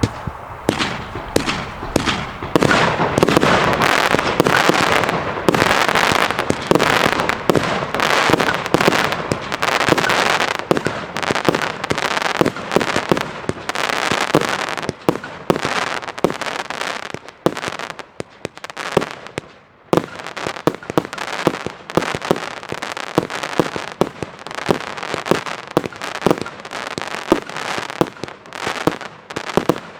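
Evolution Fireworks 'Snowstorm' four-part compound firework cake firing, extremely loud. A rapid, unbroken barrage of shots and bursts comes several a second over continuous crackle, and it thins briefly about two-thirds of the way in.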